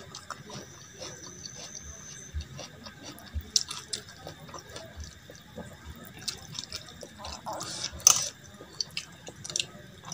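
Wet squelching of a bare hand mixing rice into runny dal on a steel plate, with the smacking and chewing sounds of eating it by hand: many small, irregular wet clicks and one louder wet smack about eight seconds in.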